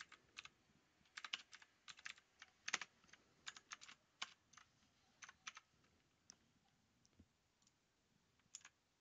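Faint computer keyboard typing: quick irregular runs of keystrokes, thinning out to a few single clicks in the second half.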